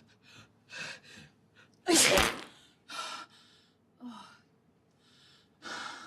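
A woman gasps a couple of times, sneezes loudly once about two seconds in, then takes several more short gasping breaths.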